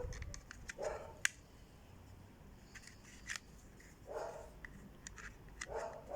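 Kydex sheath being handled: rustling of the stiff plastic, with two sharp clicks, one about a second in and one past the middle.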